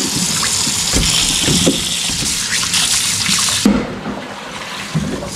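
Kitchen tap running onto a colander of peeled ambarella fruit in a stainless-steel sink as they are rinsed, with a few knocks of the bowl and fruit being handled. The running water stops abruptly about three and a half seconds in.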